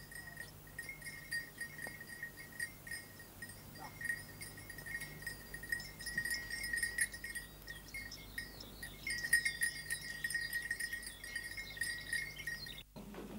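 Cowbells on walking cattle, jangling irregularly and steadily. The sound stops abruptly near the end.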